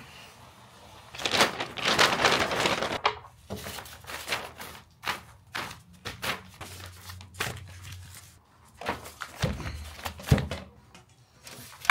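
Brown paper bags rustling and crinkling as they are torn open and spread out on a stone countertop, loudest for a couple of seconds near the start, then in shorter crackles. Near the end a stainless steel appliance is set down on the paper with two dull thunks.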